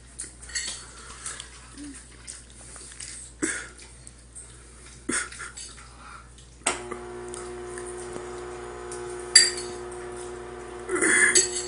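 A fork clicking and scraping against a plate in scattered, irregular taps while macaroni and cheese is eaten. About two-thirds of the way through, a steady low hum starts and carries on beneath the clicks.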